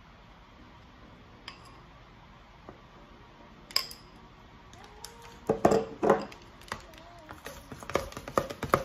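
Metal spoon clinking and scraping against bowls as melted chocolate is scraped out and stirred into whipped cream. There is a single clink a little before halfway, then repeated quick knocks and scrapes of the spoon in the mixing bowl through the second half.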